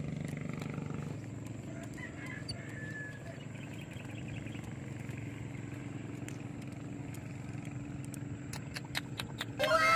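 Outdoor background: a steady low hum with a few faint bird chirps. A few light clicks come near the end, and right at the end a loud call begins, sliding down in pitch.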